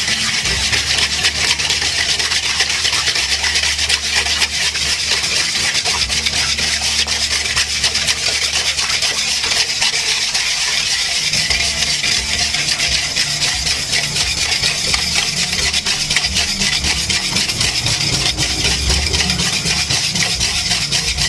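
Wire whisk stirring sugar and water in a stainless steel bowl without a break: a steady fast scraping rattle of the wires against the metal while the sugar dissolves. A low steady hum sits underneath.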